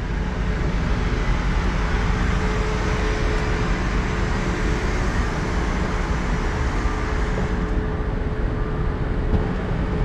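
Large bus's engine idling, a steady rumble with a faint constant tone over it.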